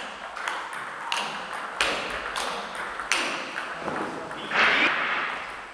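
Table tennis rally: a celluloid ball clicking off rubber bats and the table about every half second. About four and a half seconds in there is a louder burst of noise, heard as a player lunges at a ball.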